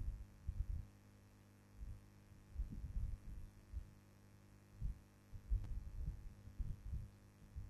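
Steady low electrical hum with irregular low thumps and rumbles in small clusters, a few of them every second or two.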